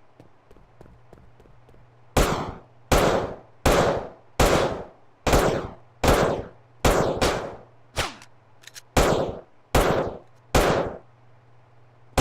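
A series of about eleven loud, sharp bangs, roughly one every 0.8 seconds, each dying away quickly, after a couple of seconds of faint ticking.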